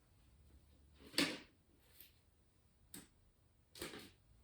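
A few separate knocks and clunks from objects being handled, the loudest about a second in and the others roughly a second apart.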